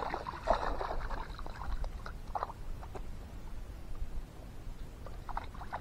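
Dogs splashing and paddling in shallow river water, a scatter of small splashes in the first couple of seconds, then quieter wading.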